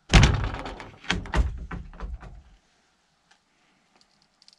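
An old wooden wardrobe door being wrenched open: one heavy wooden thunk, then several knocks and clatters of wood that stop after about two and a half seconds.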